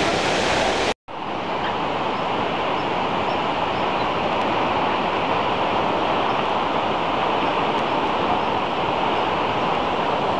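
Steady rush of flowing water, with a brief dropout about a second in.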